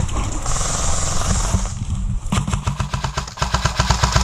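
Low rumble of wind and movement on a helmet-mounted camera, then from about two seconds in a fast, even rattle of clicks: an airsoft electric gun firing on full auto.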